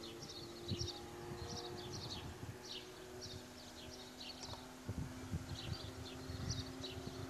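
Small birds chirping in short repeated high calls, over a faint steady hum and a few soft low thumps.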